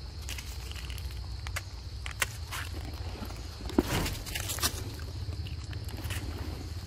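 Rustling and crackling of dry fallen leaves underfoot, with a few sharp clicks about two, four and four and a half seconds in, over a steady low rumble.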